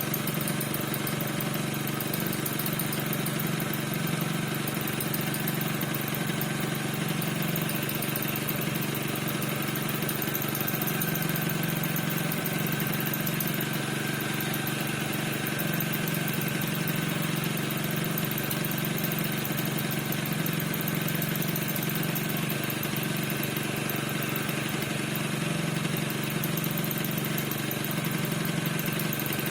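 Piaggio NRG 50 scooter's 50 cc two-stroke engine idling steadily, with a thin high squeak running over the engine note. The cause of the squeak is not known to the owner.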